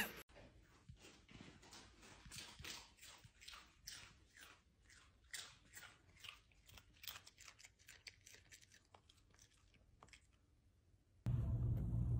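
A dog crunching snack chips from a bag: a run of short, sharp, irregular crunches, two or three a second, that stops about ten seconds in. A steady low hum takes over near the end.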